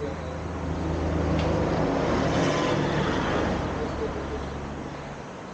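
A motor vehicle passing by: engine and tyre noise swelling to a peak midway, then fading away.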